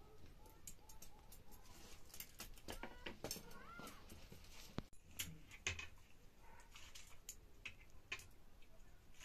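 Soft clinks and taps of metal kitchen utensils: a spoon working cooked rice on a plate and a ladle being handled at a wok. About three seconds in come two brief high calls that rise and fall.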